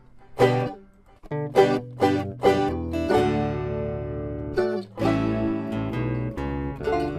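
Background music on plucked acoustic guitar: single picked notes, then a note left ringing about three seconds in.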